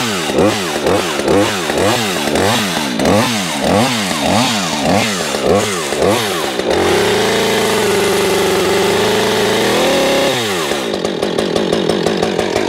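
Husqvarna 562 XP two-stroke chainsaw, freshly started, blipped up and down about twice a second. About six and a half seconds in the throttle is held open at high revs, then released about ten seconds in, and the engine drops back to idle.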